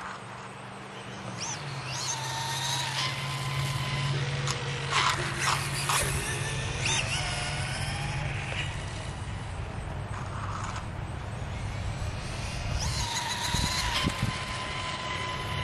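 Losi Promoto-MX 1/4-scale electric RC dirt bike riding around, its motor whine rising and falling in pitch with speed, over a steady low hum.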